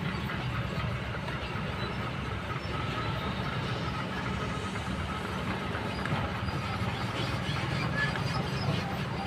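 Kobelco long-reach excavator's diesel engine running steadily as the machine swings its boom and lowers its arm.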